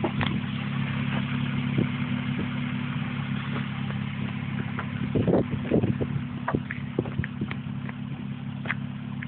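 Honda J32 3.2-litre V6, swapped into an Acura Integra, idling steadily with a few sharp clicks over its even hum.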